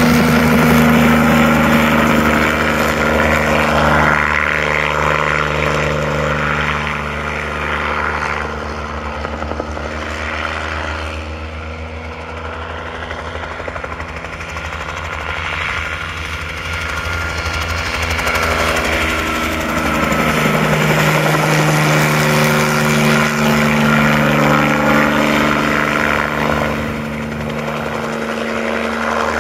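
Small crop-spraying helicopter making low passes: its rotor and engine drone fades as it flies off across the field and grows louder again as it comes back, the pitch sliding as it goes by.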